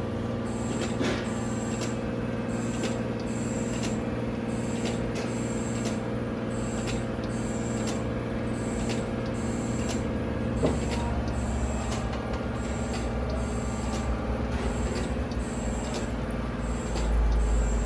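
Heald 273A universal internal grinder running: a steady machine hum, with a high-pitched hiss that pulses on and off about once a second and scattered light clicks.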